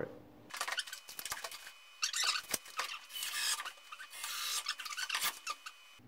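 Close handling noise: irregular rubbing and scraping with scattered clicks, in several separate patches.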